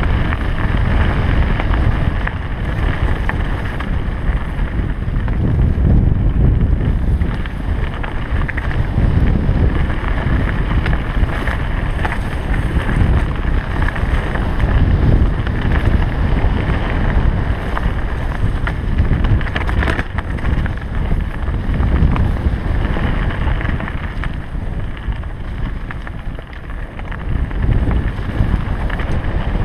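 Heavy wind buffeting on a helmet-mounted GoPro Hero 3's microphone as a mountain bike rides fast down a leaf-covered dirt trail, with occasional faint clicks and knocks from the bike over the ground.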